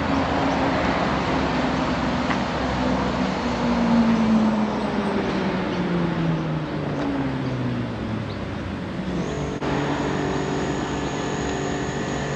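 Road traffic noise, with a vehicle engine whose pitch falls steadily over several seconds in the first half. In the last few seconds a steadier engine hum takes over.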